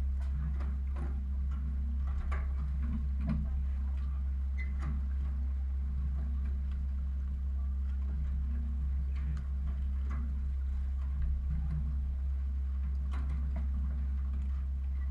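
Steady low hum with scattered light clicks and knocks.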